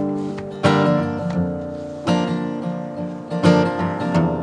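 Solo acoustic guitar playing: chords struck about every second or so, each left to ring and fade.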